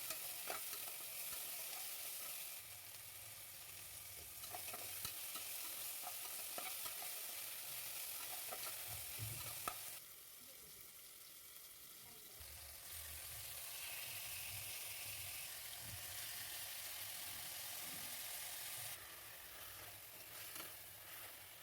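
Food sizzling as it fries in a pan, with small clicks and scrapes of a spoon stirring it. The sizzle drops and comes back abruptly a few times.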